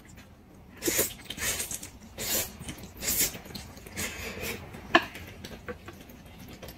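Slurping and chewing a mouthful of mixed buckwheat noodles: several short wet slurps spread over the first few seconds, then a single sharp click of chopsticks against the plate about five seconds in.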